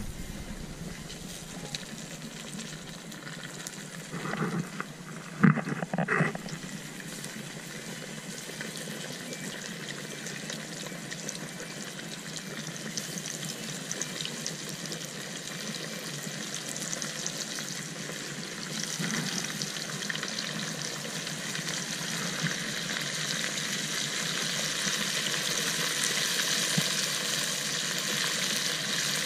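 Fish frying in a pot of hot oil on a propane burner: a steady sizzle that grows louder toward the end. A few knocks come about four to six seconds in.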